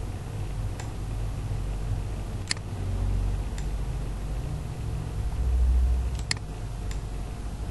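Computer mouse clicking, about five sharp single clicks a second or more apart, over a steady low rumble that swells briefly a little past the middle.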